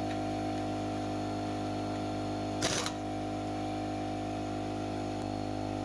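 Air compressor running with a steady motor hum made of several steady tones. A brief hiss cuts in about two and a half seconds in.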